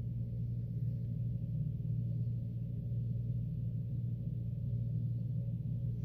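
Steady low hum, unchanging throughout, with no other sound.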